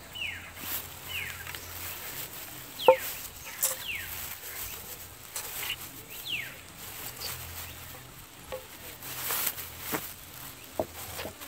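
Plastic bag crinkling and a hand can opener working at a tin inside the bag, with a sharp click about three seconds in the loudest sound. Birds call around it: short downward-sliding whistles, about one a second.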